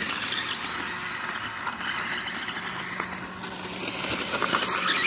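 Battery-powered RC dirt bike driving in small circles on gravel: its electric motor runs while the tyres scrape over the loose stones. The sound grows louder near the end as the bike comes close.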